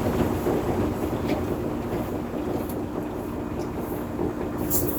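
Concrete truck's diesel engine running steadily: a continuous low rumble with a constant hum.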